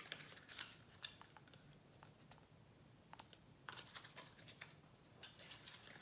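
Faint, scattered clicks, taps and light rustles of a small eyeshadow compact and its cardboard-and-plastic packaging being handled and opened, some coming in quick little clusters.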